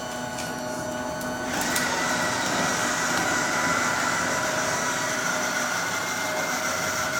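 Small electric motors of RC construction models whining steadily at several fixed pitches, with a few short clicks in the first two seconds and a slight rise in level about a second and a half in.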